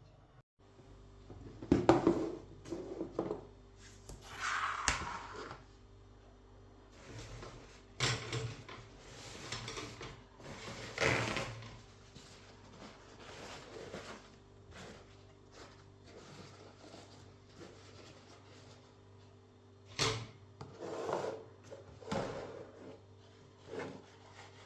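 Household handling sounds: scattered knocks and clatter with short scraping and rustling, like things being moved about and a drawer or cupboard worked, over a faint steady hum.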